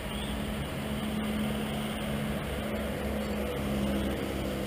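Road traffic on a busy city street: vehicle engines running with a low, steady hum and a wash of traffic noise.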